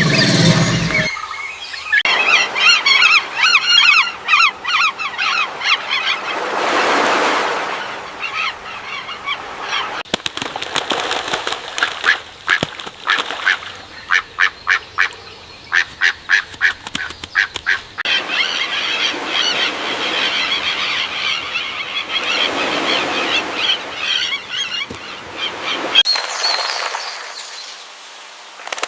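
A flock of birds calling, many overlapping high calls at once, with a run of sharp repeated calls, about two a second, in the middle. A rush of noise swells and fades twice, and the sound changes abruptly several times.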